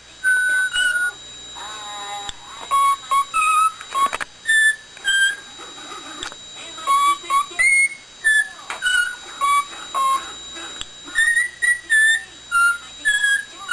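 A pet parrot whistling a string of short, clear notes at changing pitches, some sliding up or down.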